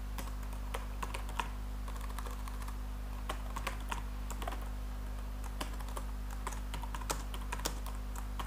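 Computer keyboard typing: scattered, irregular keystroke clicks as a line of code is typed, over a steady low electrical hum.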